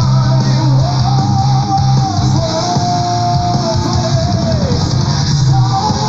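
Power prog metal recording playing: guitars, bass and drums under a melody line that holds one long note about halfway through.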